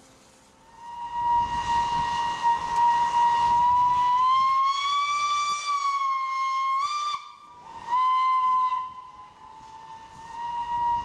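LNER B1 steam locomotive's whistle sounding a long blast, its pitch rising slightly, then a brief break and a second, shorter blast, with a quieter tone continuing near the end, over a hiss of steam. The whistle is sounded as a salute to a funeral cortege.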